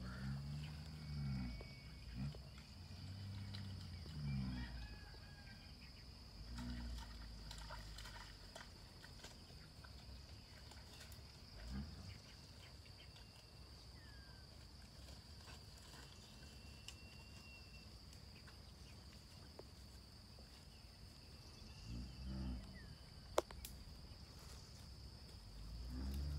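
Steady high insect drone with a few faint bird chirps. Over it come several short, low sounds that rise and fall in pitch, bunched in the first five seconds and again about 22 seconds in.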